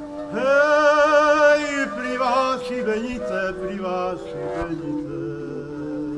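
Slovak shepherd-song melody. A pitched line slides up into a high note held with wide vibrato, then falls away in a descending phrase, over a steady low drone.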